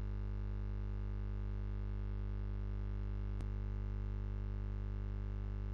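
Steady electrical mains hum with its overtones, a constant low drone under the recording, with one faint click about three and a half seconds in.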